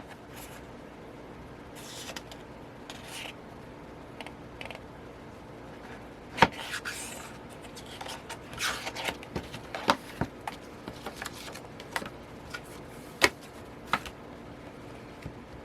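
Paper and card album inclusions being handled: intermittent rustling and sliding, broken by a few sharp taps or clicks.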